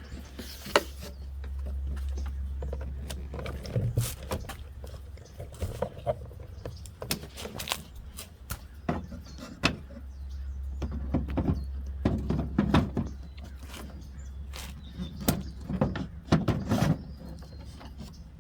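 Irregular clicks, knocks and scrapes of a Porsche 996's plastic headlight unit being handled and slid into its mounting slots, with a low rumble under parts of it.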